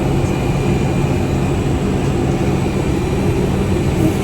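A steady low mechanical hum, with no change in pitch or level.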